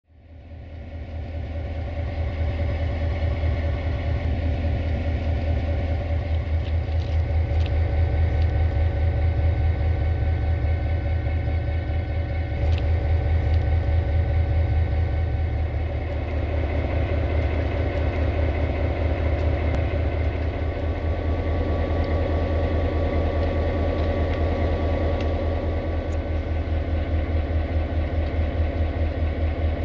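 NoHAB diesel locomotive's EMD 567 two-stroke engine idling steadily with a fast, even low throb; the sound fades in over the first two seconds.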